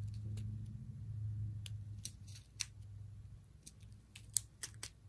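Small clear plastic bags of square resin diamond-painting drills being handled: scattered short crinkles and clicks of the plastic, over a low steady hum that fades away.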